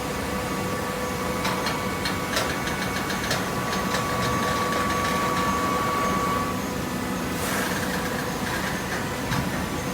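Hydraulic cardboard baler running with a steady machine hum and a whine that stops about two-thirds of the way through; a series of clicks and knocks in the first half and a short hissing burst near the end.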